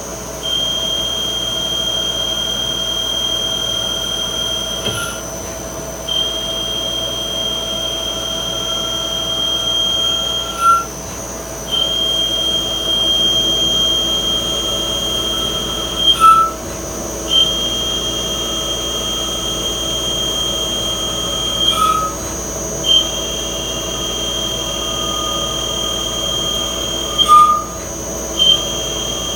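Yang CNC lathe turning bar stock in repeated longer passes: a steady high-pitched whine during each cut, breaking off about every five and a half seconds with a short sharp sound as the tool goes back for the next pass, over the machine's constant hum.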